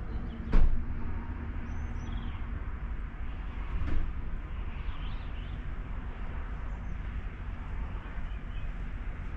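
Steady low rumble of a vehicle, with one sharp knock about half a second in and a duller thump near four seconds.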